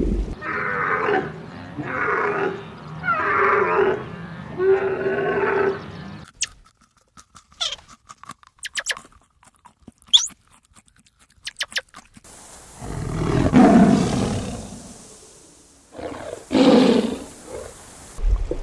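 A run of different animal calls: four pitched calls about a second apart, then scattered short chirps and clicks, then two loud, rough low calls near the end.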